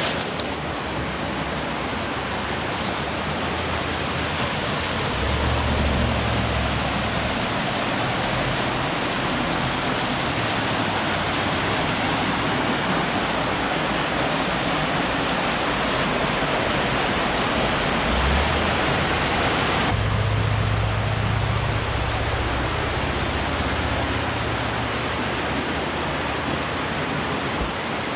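Rushing water of a waterfall or mountain creek, a steady full roar. About two-thirds of the way in the sound changes abruptly to a deeper rumble with less hiss.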